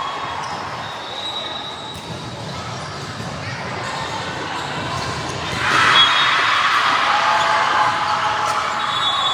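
Basketball game in a gym: a ball bouncing and sneakers squeaking on the court over a hall full of noise. The crowd noise swells about halfway through and stays up.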